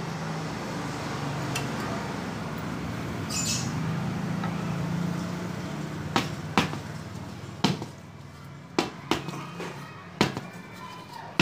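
Steady hiss and hum of air being pumped into a tubeless motorcycle tyre whose bead has not yet seated. From about six seconds in, the air stops and about seven sharp knocks follow as the wheel and tyre are handled.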